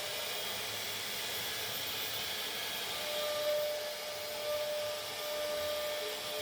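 CNC router spindle running steadily with a high whine and a steady hiss as it cuts plastic.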